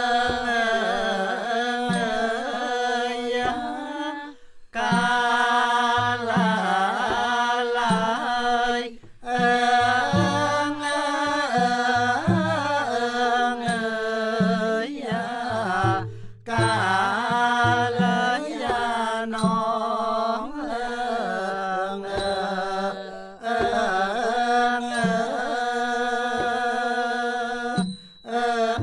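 Traditional Khmer classical dance music: a wavering sung or chanted melody over a held low tone, melodic instruments and soft drum strokes, with brief pauses between phrases.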